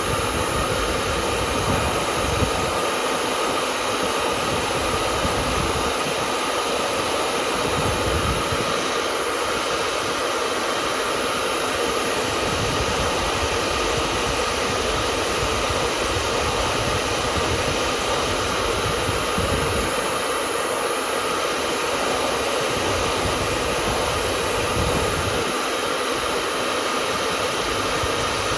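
Hair dryer running steadily: an even rush of air with a constant motor whine, no change in speed, with a low rumble that comes and goes.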